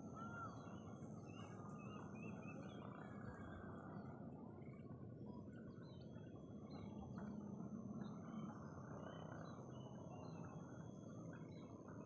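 Faint rural ambience: many small birds chirping in the distance over a steady low background hum, with a thin, steady high-pitched tone running through much of it.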